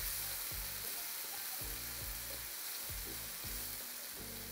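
Black bean and soy sauce sizzling steadily in a nonstick frying pan while being stirred with a wooden spatula.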